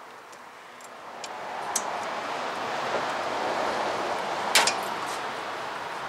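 Pliers clicking on the parking brake cable bracket while working out the cable sheath's U-clip, with a few sharp metal clicks, the loudest about four and a half seconds in. Under them runs a steady rustle of a cloth sleeve brushing close to the microphone.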